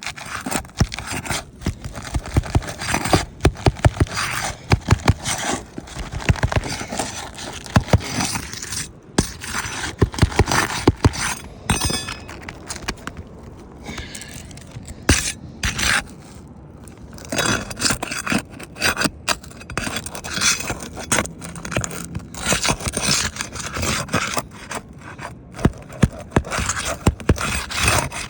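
Asphalt roof shingles being scraped and pried up as nails are worked loose, with many sharp clicks and knocks. The sound eases off for a few seconds around the middle.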